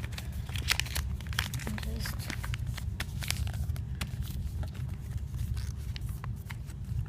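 Folded paper crinkling and crackling in irregular sharp bursts as it is pulled open into the shape of an origami boat, over a steady low hum.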